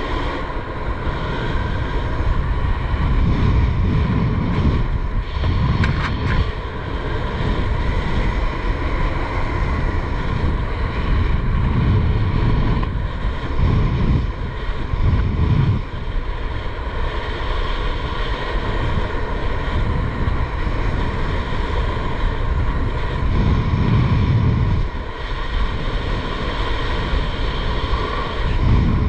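Wind rushing over the microphone of a skydiver's camera while descending under an open parachute canopy. The rush is steady, with gusty surges that swell and fall every few seconds.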